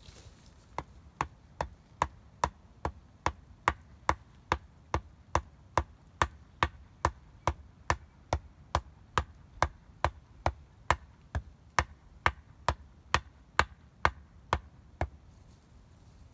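A wooden stake being pounded into the ground, struck on its top in a steady run of sharp knocks a little over two a second. The knocks start about a second in and stop about a second before the end.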